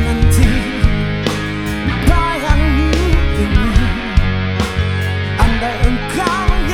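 Rock band playing live: guitars, bass and drum kit, with a lead melody line that bends and wavers in pitch over a steady low bass and regular drum hits.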